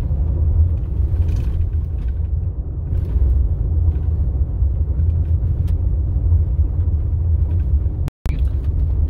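Car driving on a gravel road, heard from inside the cabin: a steady low rumble of tyres and engine, with a few short clicks of loose stones. The sound cuts out for a moment near the end.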